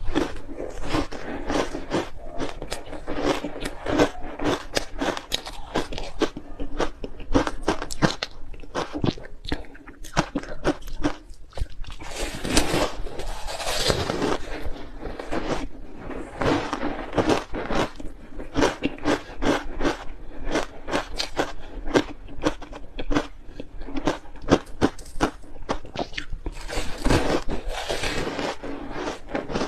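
Ice being bitten and chewed: a dense, irregular run of sharp cracks and crunches.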